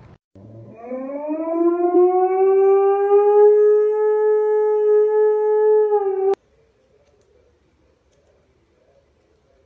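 Alaskan malamute howling: one long howl that rises at the start, holds steady, and cuts off abruptly about six seconds in.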